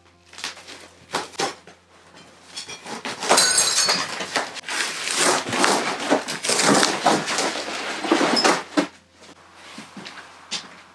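Old wall lining being torn down by hand. A few sharp cracks come first, then from about three seconds in a long stretch of ripping and crackling as the sheet comes away. It dies down to scattered small clicks near the end.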